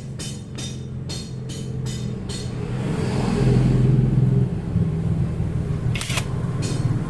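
A motor running with a steady low rumble that swells to its loudest about halfway through and then eases off. A run of sharp clicks, about two or three a second, sounds over it in the first couple of seconds, and there is one more near the end.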